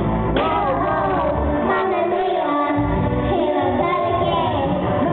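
A young girl singing karaoke into a handheld microphone over a backing track.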